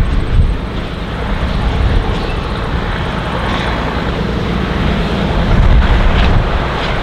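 Diesel engine of a Walker railmotor running steadily as the railcar approaches, growing louder about five seconds in.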